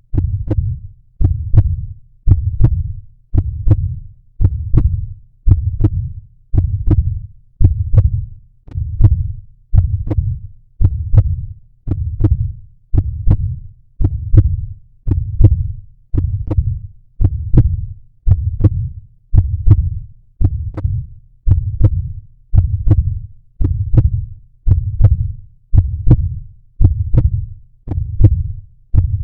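Heartbeat audio: low thumping heartbeats repeating steadily at about one beat a second.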